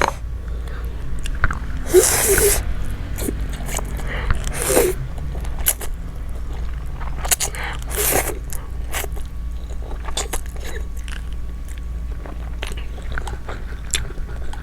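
Close-miked eating of spicy Korean instant noodles with chopsticks: steady chewing with many small wet clicks, and three louder slurps, about 2, 5 and 8 seconds in.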